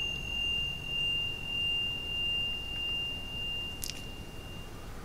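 A struck metal chime ringing on in one clear high tone that slowly fades, dying away near the end. A short click sounds about four seconds in.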